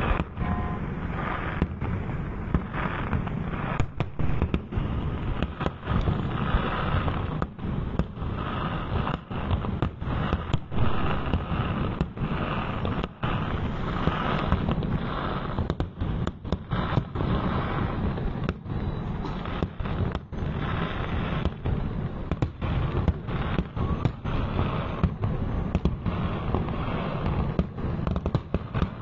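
Fireworks display: a dense, continuous barrage of firework bangs with a heavy low rumble.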